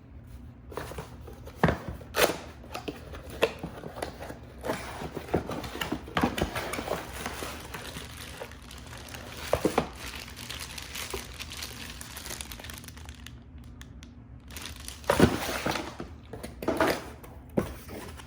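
Plastic packaging crinkling and crackling as it is handled, in irregular bursts with a few louder rustles, the loudest about fifteen seconds in.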